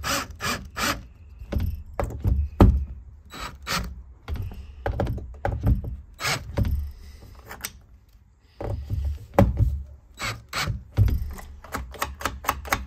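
DeWalt cordless drill-driver driving screws into a metal barrel bolt on a wooden door, running in short bursts amid a string of sharp clicks and knocks. Near the end the metal bolt is worked by hand, with quick clicks.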